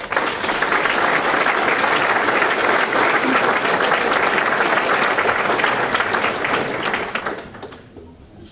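Audience applauding: the clapping breaks out at once, holds steady for about seven seconds, then dies away.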